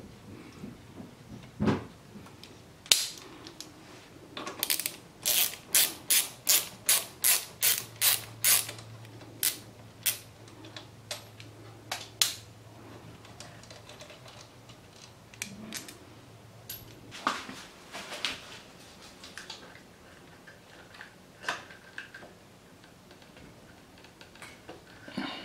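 Socket ratchet wrench clicking as a bolt is turned: a quick even run of about a dozen clicks, roughly three a second, then a few scattered single clicks.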